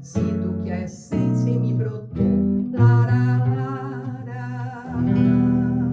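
Acoustic guitar playing the closing bars of a song: plucked notes and a strum, then a final chord about five seconds in that rings out and slowly fades.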